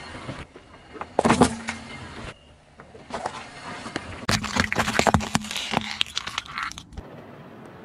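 Small plastic objects and candies cracking and crunching under a car tyre. There is a loud crunch about a second in, then a longer run of crackling and snapping from about four seconds in until it stops near the end.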